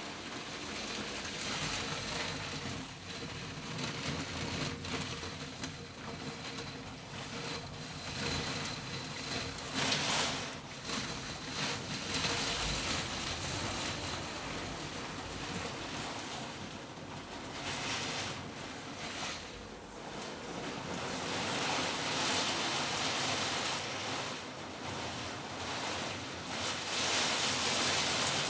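Heavy rain in gusting wind, a steady rushing hiss that swells and eases every few seconds: the main downpour of a cold front's squall line passing over.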